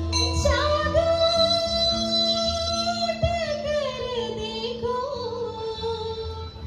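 Woman singing a melody through a microphone and PA, with long held notes that slide between pitches, over live keyboard and hand-drum accompaniment.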